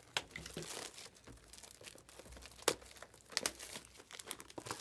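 Plastic wrapping crinkling and tearing as a sealed box of trading cards is handled and unwrapped, with a few sharp clicks among the rustle; the loudest click comes a little past halfway.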